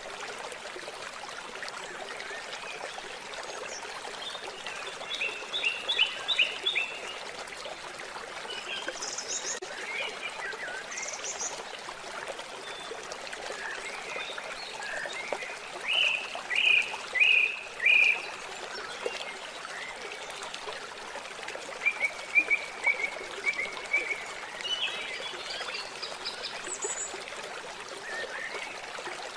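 Water trickling and flowing steadily, with animal chirps coming in short runs of three to five notes several times, the loudest run about sixteen to eighteen seconds in.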